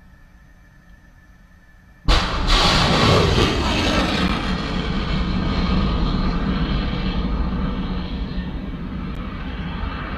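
A ship-launched missile's rocket motor roars in suddenly about two seconds in. A falling sweep in pitch follows as the missile climbs away, and the roar then holds and slowly fades.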